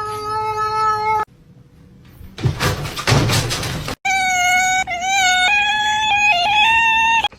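A domestic cat giving a long, drawn-out meow, then a short noisy rush, then another long meow that steps up and down in pitch before cutting off suddenly.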